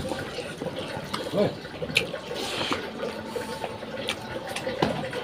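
Wet eating sounds of fish curry and rice being eaten by hand: chewing and lip-smacking, with many small irregular clicks and squelches.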